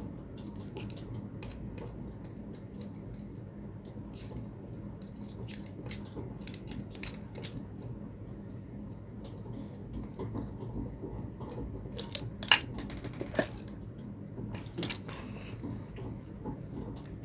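Metal parts and tools of a submersible pond pump clinking and tapping as it is worked on by hand: scattered light clicks, with a few sharper, louder clinks about twelve to fifteen seconds in.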